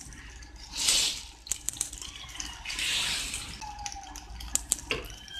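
Idli-dosa batter sizzling and crackling in hot oil in the cups of a kuzhi paniyaram pan, with many small pops and two louder swells of hiss, about one and three seconds in.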